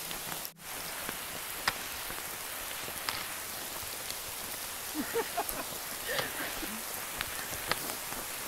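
Steady rain falling, a continuous hiss with scattered sharper drop ticks; the sound briefly cuts out about half a second in.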